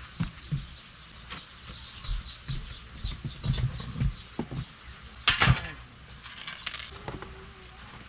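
A run of light knocks and rustles, with a louder clatter about five seconds in. A steady insect chirr in the background drops away about a second in.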